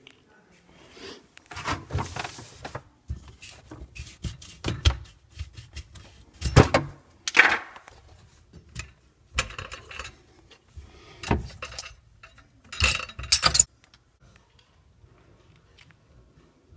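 Metal and hard objects being handled, a string of sharp clinks, clanks and rattles; it goes quiet about two-thirds of the way through.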